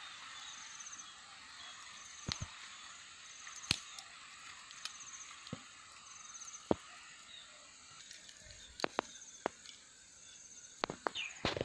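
Scattered sharp clicks and snaps of dry sticks being laid by hand over a small charcoal fire, a cluster of them near the end. Behind them a steady insect hiss with short repeated trains of high insect chirps.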